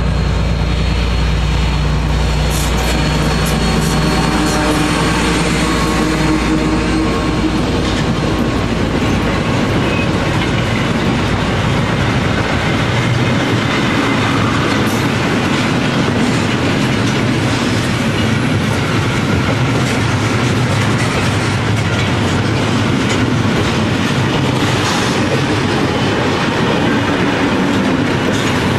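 Heavy diesel locomotive running hard as it passes close by, its engine fading after about eight seconds. It gives way to the steady rumble and wheel clatter of a long train of hopper wagons rolling past.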